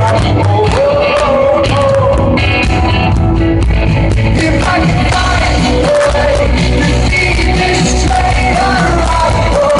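Rock band playing live, a lead singer's vocals over a full band with steady bass and regular drum hits.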